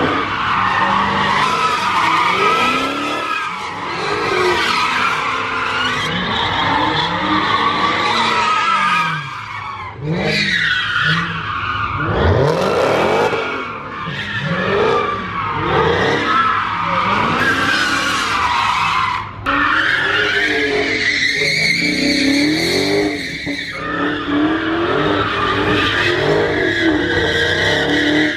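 Dodge Charger doing donuts: its V8 is revved up and down over and over while the spinning rear tyres squeal without a break.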